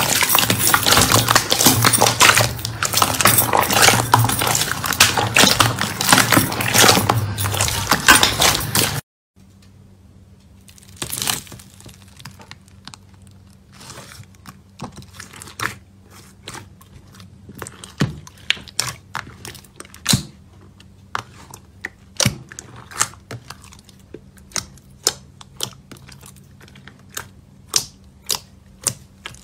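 Hands squeezing and stretching glossy slime make dense, loud squelching for about nine seconds. Then, after a sudden cut, fingers press pink slime in a plastic tub and give much quieter separate sharp pops and clicks, which come more often near the end.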